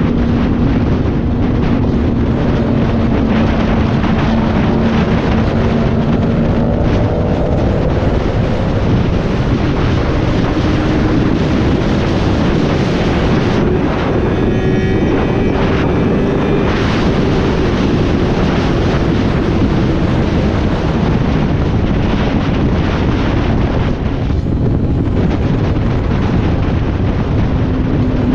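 Sport motorcycle at highway speed under heavy wind noise on the microphone. About ten seconds in, the engine note climbs as the bike accelerates hard past 100 mph, then eases back down after about seventeen seconds.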